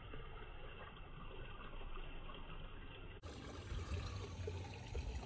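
Pond water trickling and splashing steadily. The sound cuts abruptly about three seconds in and comes back brighter, with more low rumble.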